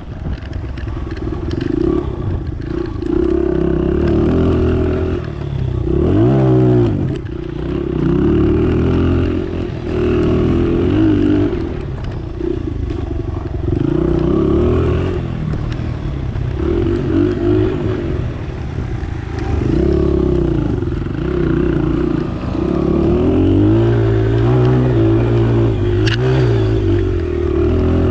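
Dirt bike engine running loud and close while being ridden, its pitch rising and falling again and again with the throttle.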